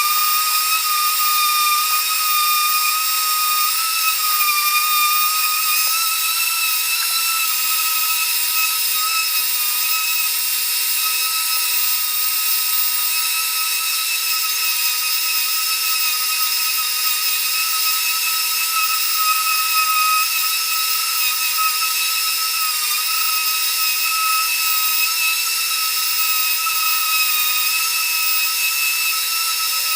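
Ridgid 5-inch random orbital sander running steadily on a wooden tabletop with a 60-grit disc: a constant high motor whine over the hiss of the abrasive on the wood.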